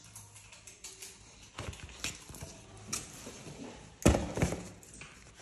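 Paper leaflets and cardboard packaging being handled: scattered rustles and light taps, with a louder knock about four seconds in.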